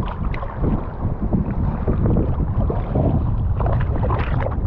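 Surf water sloshing around a wading angler, with wind buffeting the microphone. Near the end, a hooked speckled trout thrashes and splashes at the surface as it is grabbed by hand.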